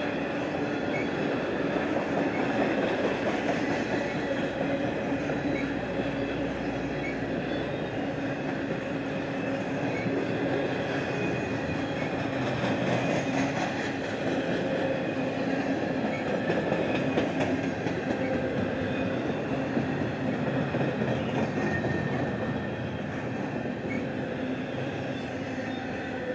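Freight cars of a CSX intermodal stack train rolling past close by: a steady run of wheel-on-rail noise and rattle, with a few thin steady tones from the wheels over it.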